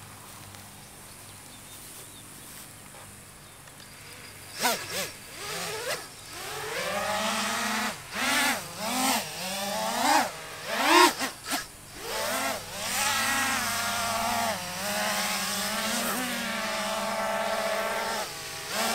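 Kinetic Aerial Vector FPV racing quadcopter's brushless motors and propellers whining as it takes off and flies. After a few quiet seconds the pitch swoops up and down in several quick throttle blips, then settles into a steadier, higher whine. This is a test flight after a crash, on a prop that was bent and straightened by hand.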